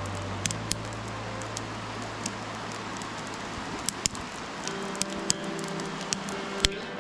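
Soft background music of sustained low notes that change chord a few times, over a steady hiss with scattered sharp pops and ticks.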